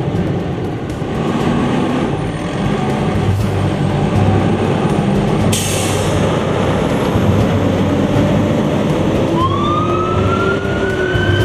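New E-One fire pumper trucks' diesel engines running as the trucks pull away, with a brief hiss of released air about halfway through. Near the end a siren starts up, rising in pitch.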